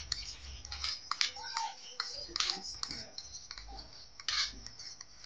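Metal fork scraping and tapping mashed banana off a ceramic plate into a bowl: a run of irregular short clicks and scrapes.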